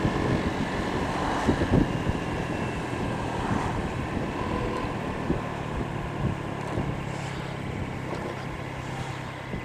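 Honda PCX scooter's single-cylinder engine running at steady road speed, with wind rushing over the microphone.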